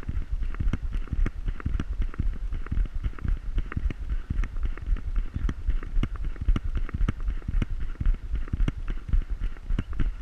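A Pointer's trotting gait jostling a camera mounted on its back: a rapid, uneven run of knocks and thumps, several a second, over a low wind rumble on the microphone.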